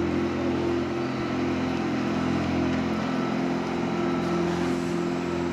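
Water cannon truck's engine and pump running at a steady speed, a low even drone.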